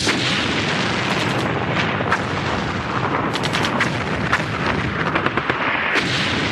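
Produced sound effects of a battle: a continuous rumbling barrage like explosions and artillery, with many sharp gunshot-like cracks scattered through it, used as a radio show's opening bumper.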